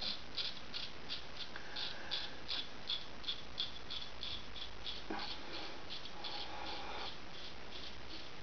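Gold Dollar 66 straight razor scraping through lathered stubble on the upper lip in short strokes, a dry scratchy rasp about three times a second.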